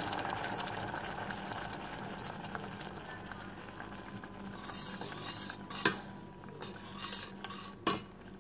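A metal spoon stirring a pot of simmering castor-seed paste, with two sharp knocks of the spoon against the pot near the end. In the first couple of seconds, a few short beeps come from an induction hob's touch controls as the power level is turned down.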